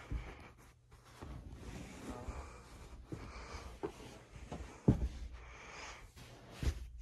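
Quiet rustling and handling noise from someone moving close in around a sofa, with a dull thump about five seconds in and another near the end.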